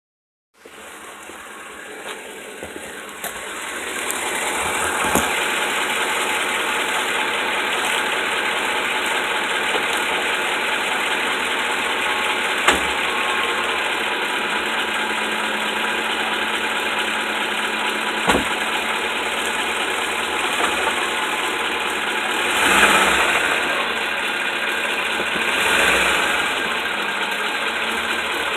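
A 2008 Ford F-150 4WD pickup running, with a steady mechanical noise that builds over the first few seconds, a few sharp clicks and two brief swells near the end. This is the strange sound that the owner cannot identify.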